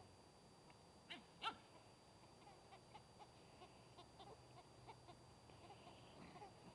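Puppies yelping twice in play about a second in, the second yelp the louder, followed by a run of faint short squeaks.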